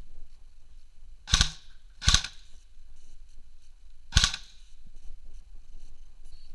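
Airsoft guns firing three single sharp shots, two close together about a second and a half in and a third about two seconds later, each with a short echo off the bare concrete walls.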